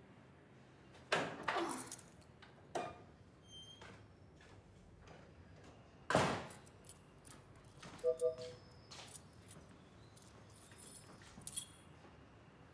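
Keys rattling and turning in an apartment door lock and the door opening, with sharp clicks and knocks, then a louder thump about six seconds in. Footsteps and small knocks and clicks follow, with a short beep a little after eight seconds.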